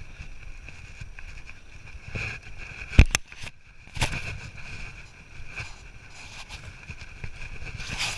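Hiker's footsteps and scuffs on the rock trail, with a sharp knock about three seconds in and smaller knocks about a second later and near the end, over a steady high buzz.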